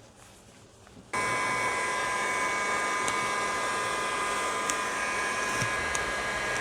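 A small electric blower motor switches on abruptly about a second in and runs steadily, with a rushing air noise and a steady high whine.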